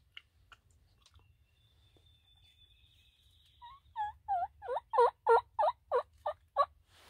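A wild turkey yelping close by: a run of about ten yelps, about three a second, growing louder after the first few.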